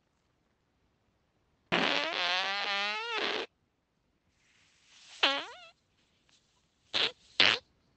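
A man's farts in a series: one long, wavering fart lasting nearly two seconds, a shorter one about five seconds in, and two short sharp ones close together near the end.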